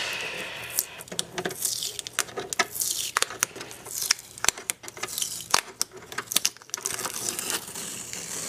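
Fingernails scratching and picking at packing tape and sticker residue on the ribbed plastic case of a Macintosh LC, with many irregular small clicks and scratchy peeling sounds.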